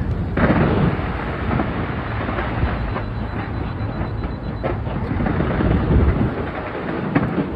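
A fireworks barrage fired from a skyscraper: a continuous deep rumble of bursts with dense crackling, and a heavier boom about half a second in.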